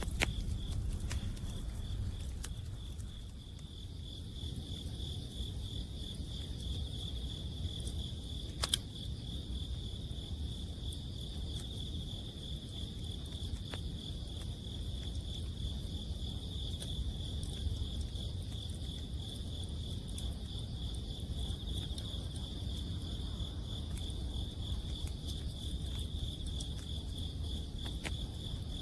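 Autumn crickets chirping in a steady, rapidly pulsed high trill, with scattered small crackles from a wood campfire and one sharper pop about nine seconds in, over a low rumble.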